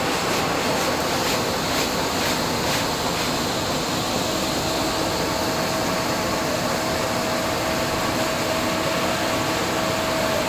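Steady drone of the electric motors driving the drums of a cotton-seed acid-treatment machine, over the hiss of running water; a steady whine comes in about four seconds in.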